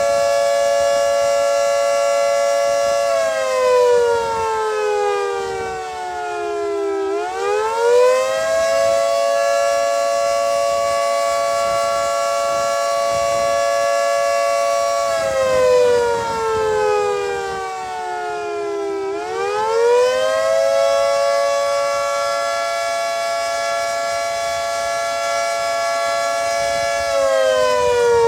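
Federal Signal 3T22A electromechanical outdoor warning siren sounding the Attack signal: a loud chord of several tones holds steady for several seconds, then slides down in pitch and swoops back up. The fall and rise come twice, about twelve seconds apart, and a third fall begins near the end.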